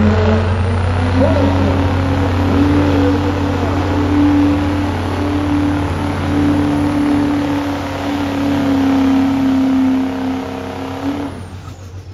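Diesel pickup truck engine held at high revs under full load, dragging a weight-transfer sled in a truck pull. It holds a steady high pitch and then drops away about a second before the end as the pull finishes.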